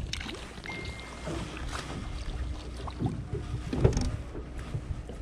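Low steady rumble of a small boat on the water, with scattered knocks and thumps of handling aboard, the loudest a little before four seconds in.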